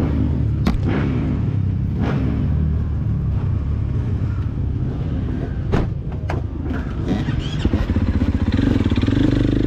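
Dirt bike engine running at idle, with a few sharp clicks and knocks over it; near the end the engine note rises a little.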